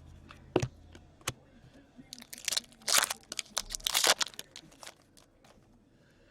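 Trading-card pack wrapper being torn open and crinkled, with a few sharp taps of card handling in the first second or so and a cluster of loud crackling tears about two to four seconds in.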